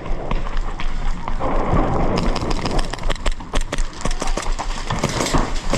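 Airsoft guns firing: a dense, irregular run of sharp snaps and clicks that grows busier from about two seconds in.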